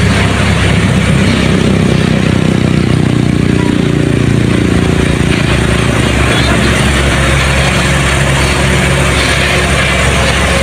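Truck engine running, loud and steady over a constant noisy rush, its pitch shifting about three to five seconds in.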